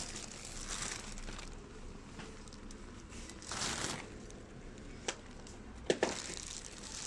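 Clear plastic wrapping on a racket bag crinkling as it is handled and squeezed, in a few rustling swells, with a few sharp clicks near the end.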